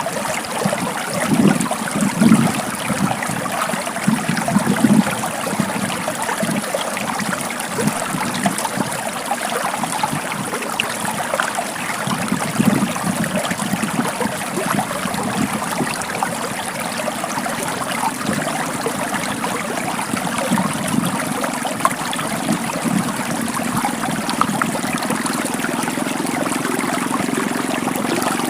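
Small stream flowing and trickling over stones, a steady rush of water with uneven gurgles in the first few seconds.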